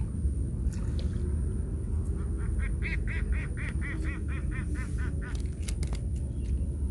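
A duck quacking in a quick run of about a dozen calls, roughly four a second, over a steady low rumble. A few sharp clicks follow near the end.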